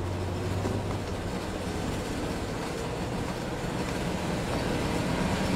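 A motor vehicle's engine running steadily, a low rumble that grows gradually louder toward the end as it comes closer.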